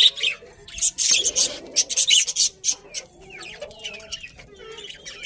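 Budgerigars chirping and chattering: a dense run of short high chirps over a lower warbling, busiest from about one to three seconds in.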